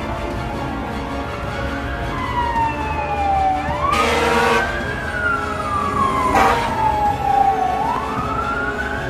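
Emergency vehicle siren wailing, its pitch slowly rising and falling in long sweeps, with two short louder blasts about four seconds in and again two seconds later.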